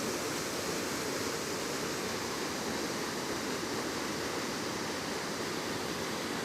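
Steady rush of falling water from a waterfall of about 20 to 25 feet, an even, unbroken roar-like hiss.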